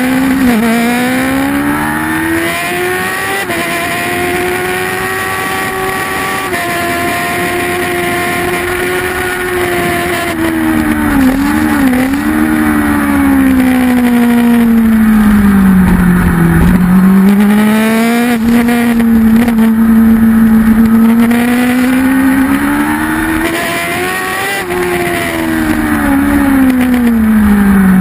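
Kawasaki ZX-10 superbike's inline-four engine, heard from a camera mounted on the bike at racing speed. The revs climb in the first few seconds and hold, dip and waver through gear changes around the middle, sink low, then climb to a peak near the end before falling away.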